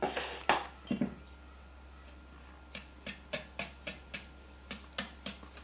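Small wire whisk knocking and clicking against a stainless steel bowl while stirring sugar into eggs and yolks. There are a few louder knocks in the first second, then a run of light, even clicks about three or four a second from around the middle.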